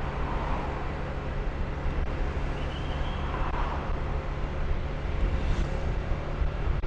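Motorbike engine running steadily while riding, with road and wind noise around it.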